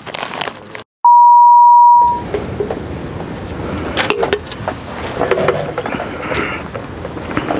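A single loud, steady beep tone about a second long, edited in over a cut to dead silence about a second in. After it, quiet room noise with a few scattered clicks and rustles.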